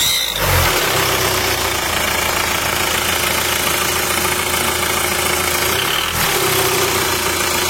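An engine running steadily at idle, with a brief low surge about half a second in.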